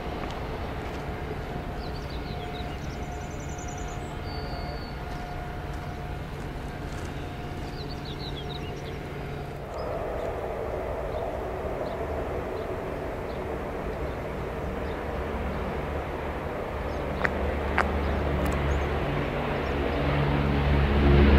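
The distant, steady drone of a B-25 Mitchell's twin radial piston engines. About ten seconds in it gives way to the four radial piston engines of a Douglas DC-6, growing steadily louder as the airliner passes low, loudest near the end.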